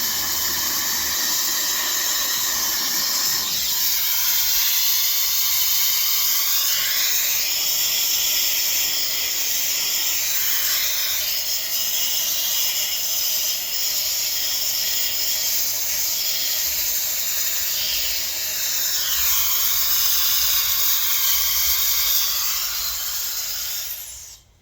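Electric fluid-art paint spinner running at speed, a steady high whirring hiss, then stopping abruptly near the end.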